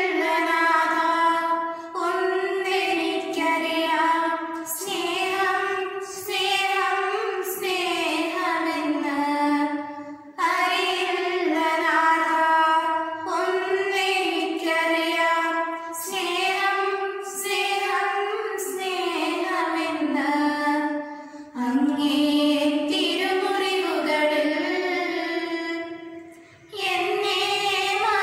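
Two girls singing a song together in sustained, held phrases, with short breaks between phrases.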